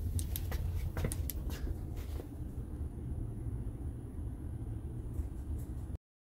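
A steady low rumble with several sharp clicks in the first two seconds, like a handheld phone being moved; the sound cuts off abruptly near the end.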